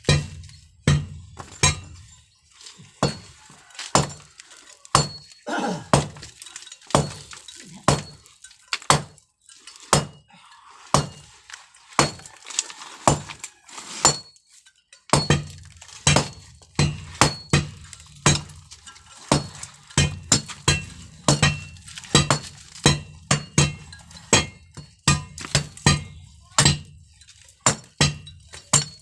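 Steady series of sharp hammer blows on concrete, about one or two a second, each with a short metallic clink. There is a brief slower patch a few seconds in.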